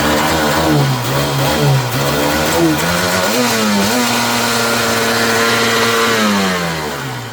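Freshly rebuilt Sea-Doo GTX 951 two-stroke twin running. Its pitch wavers and climbs for the first few seconds, then holds steady at an idle that is too high and needs turning down, before winding down near the end.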